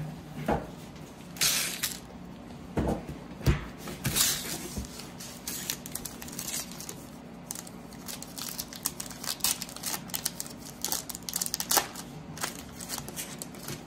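A baseball card pack's wrapper torn open and crinkled by hand as the cards are pulled out: irregular sharp crackles and rustles, thickest in the last few seconds.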